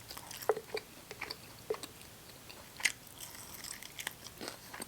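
Close-up eating sounds from chicken wings: irregular wet chewing and mouth smacks with a few crisp bites.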